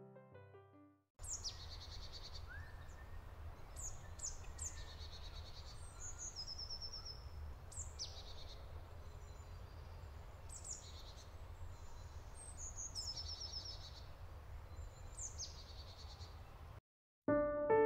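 Birds calling: repeated short, high calls that drop in pitch, often in pairs or quick clusters, over a steady low rumble.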